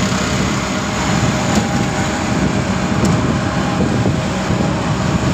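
Auto-rickshaw on the move, heard from the passenger seat: its small engine running steadily under constant road noise.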